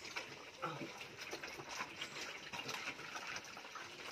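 A group of piglets eating together, a soft wet slurping and smacking with many small clicks.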